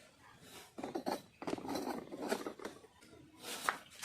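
Faint, irregular clicks, taps and scrapes of hand tools and metal parts being handled while fitting parts to a motorcycle, with a slightly sharper tap near the end.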